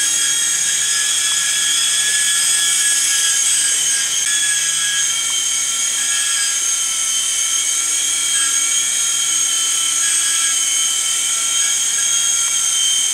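Electric HeliZone ThunderBird 4-channel coaxial RC helicopter in flight, its small motors and rotors giving a steady high whine with slight wavers in pitch as the throttle is worked.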